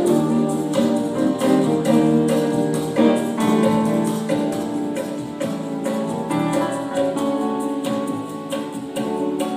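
Electronic keyboard played live: held chords with a melody line moving over them.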